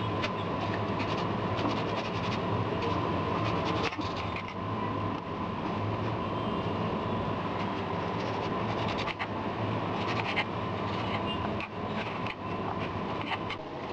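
A knife cutting a raw green mango into small pieces on a board, giving irregular short clicks, over a steady mechanical hum with a thin whine.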